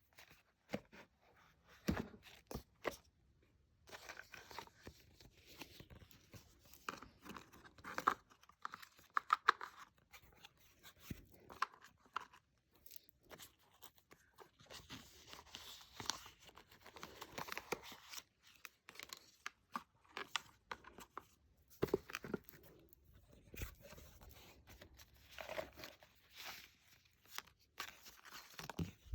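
Packaging being handled and torn open: irregular rustling, crinkling and tearing, with scattered sharp clicks.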